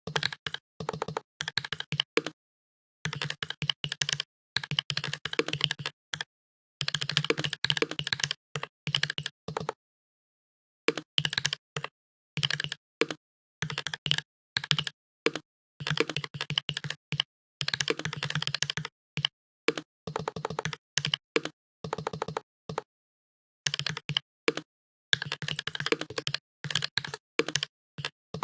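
Computer keyboard typing: fast runs of key clicks lasting a few seconds each, broken by brief pauses.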